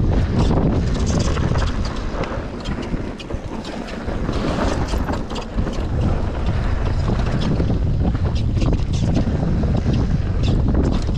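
Wind buffeting the microphone of a GoPro Hero 9 on a downhill mountain bike at speed, over a steady rumble of tyres on a dirt trail, with frequent sharp clicks and rattles from the bike over rough ground. It eases off briefly about three seconds in.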